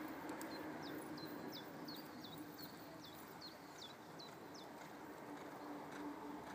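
A small songbird singing a quick run of about a dozen high notes, each sliding downward, at roughly three a second; the run stops about four and a half seconds in. A faint steady hum lies underneath.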